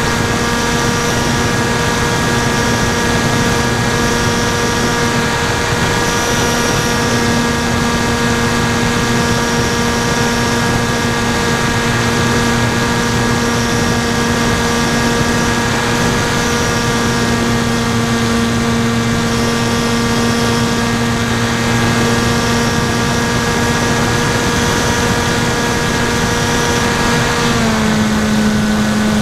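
Electric brushless motor (NTM 2836 1200 kV) driving a 10x5 APC propeller on a flying wing in flight: a steady, loud drone heard from on board. Near the end the pitch drops slightly as the motor slows.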